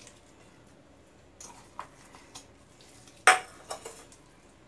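Sliced onion being dropped by hand into a metal bowl of cut potatoes and tomatoes: a few light knocks against the bowl, with one sharp clink about three seconds in.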